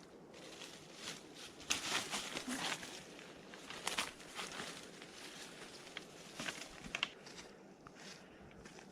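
Footsteps of people hiking on a trail: irregular crunching steps, a few louder ones among them.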